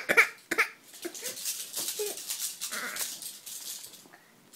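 A baby crying in a few short sobbing bursts about the first half second, trailing off into quieter whimpers and fussing.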